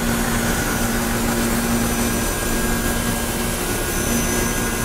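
Steady whir and hum of running machinery, with a low droning tone that weakens a little over two seconds in.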